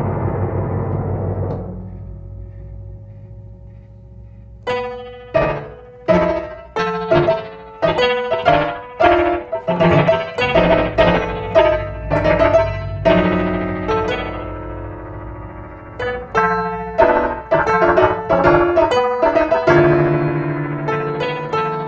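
Grand piano played: a dense ringing wash dies away over the first two seconds, leaving one held note, then a run of sharply struck notes and chords starts about five seconds in, thins out for a moment around the middle, and picks up again.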